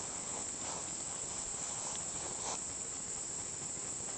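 Steady high-pitched insect chorus, with a faint tap about two and a half seconds in.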